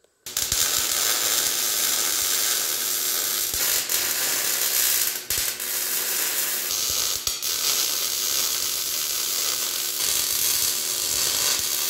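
Electric arc welding on steel: a steady crackling sizzle of the welding arc, with a brief break about five seconds in.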